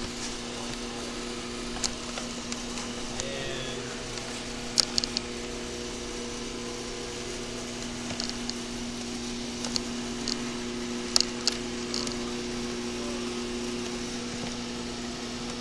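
1998 Audi A4 engine idling with the air conditioning running: a steady low hum, broken by a few sharp clicks and taps. The A/C compressor is not kicking on, which the technician suspects comes from too little refrigerant in the system.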